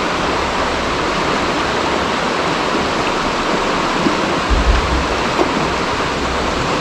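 Steady rush of river water, with a low rumble coming in about four and a half seconds in.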